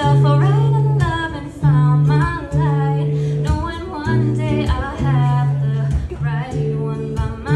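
A woman singing a slow melody with wavering, gliding notes, accompanied by her own strummed acoustic guitar holding sustained chords.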